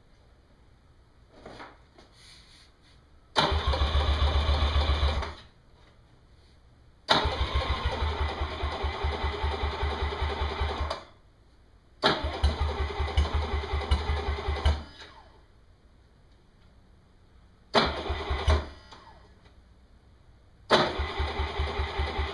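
Tohatsu four-stroke outboard motor's electric starter cranking the engine in five separate tries, each a rapid, even chugging lasting one to four seconds, without the engine catching. The motor has not run in ten months and its battery is low.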